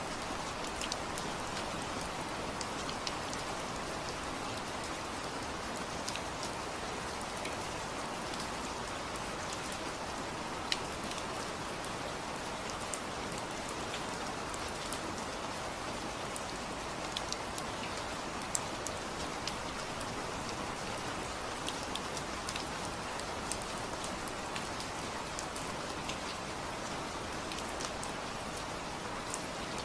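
Steady rainfall, with individual raindrops ticking sharply on a surface over the even wash of rain.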